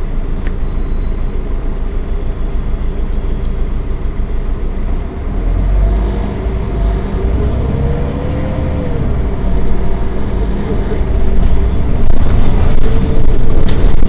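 Heuliez GX 327 city bus engine idling, a steady low rumble. The sound swells a little about five seconds in, then grows louder near the end.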